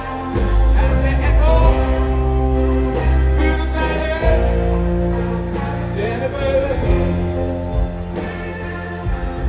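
Live rock band playing, with heavy steady bass notes under held chords and a few sliding lead notes in the middle range.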